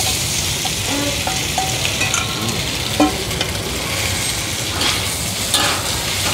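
Bột chiên frying in oil in a pan: a steady sizzle, with a few short knocks and scrapes of a spatula against the pan, the sharpest about three seconds in.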